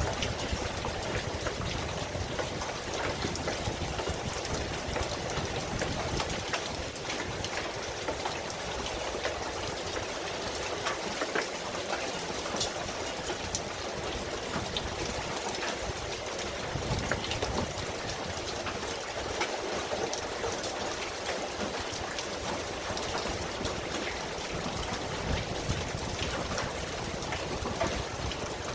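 Steady rain falling: a continuous even hiss with many separate drop ticks scattered through it.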